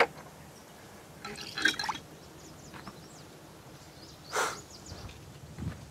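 Water splashing and dribbling at a hanging washstand as a man rinses his face with his hands: a sharp knock at the start, then short splashes about a second in and again about four and a half seconds in.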